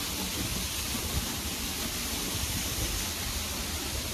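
Waterfall rushing steadily, an even noise with a low rumble underneath.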